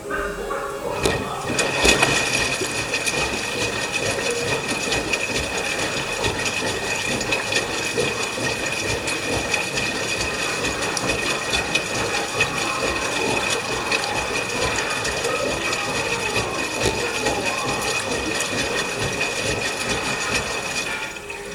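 LG washing machine taking in water, as for its rinse: a steady rush of water with a thin whine over it, starting within the first second and cutting off near the end.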